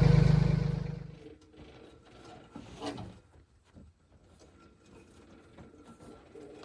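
Tractor engine running steadily, then shut off and winding down over about a second. Afterwards come faint mechanical clicks and a single knock about three seconds in.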